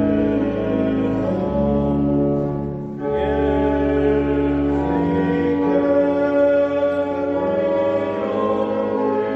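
Church pipe organ playing a hymn in sustained full chords, with the bass moving from chord to chord; a short break between phrases about three seconds in.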